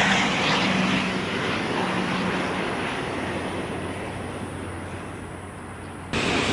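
Airbus A350-900 airliner's Rolls-Royce Trent XWB turbofans on landing approach: steady jet noise that fades as the aircraft moves away, its hiss dying out first. About six seconds in it cuts off suddenly to a louder, different background.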